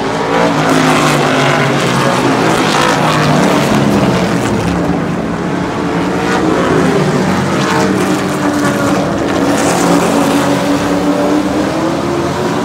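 Super truck racing engines running hard around the oval. Several engines overlap, their pitch rising and falling as the trucks go by.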